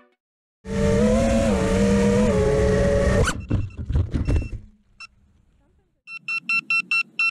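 FPV quadcopter motors and propellers whining at high throttle, the pitch wavering, then cutting off suddenly about three seconds in as the quad crashes into sunflower plants, followed by a second of choppy sputtering as the props hit leaves. After a short pause, the quad's buzzer starts rapid, evenly spaced high beeping, the lost-model alarm that helps find a downed quad.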